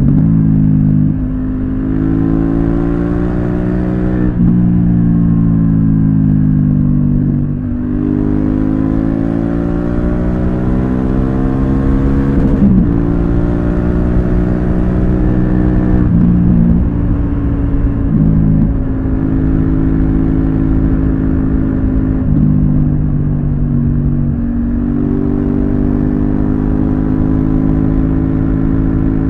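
Honda Africa Twin's 998 cc parallel-twin engine running under way, its pitch rising and falling with the throttle over several seconds and dipping briefly a few times, with wind rush on the microphone underneath.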